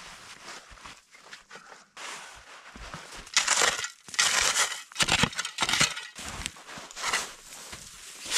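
Dry, granular snow crunching and scraping in irregular bursts as it is dug and packed into a windbreak wall. The crunches are sparse at first and come loud and close together from about three seconds in.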